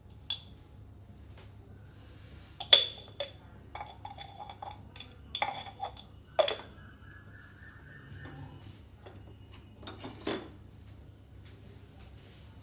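Hard objects clinking as they are handled and set down, several sharp clinks with a short ring to each. The loudest come about a quarter and halfway through, and a last one comes near the end.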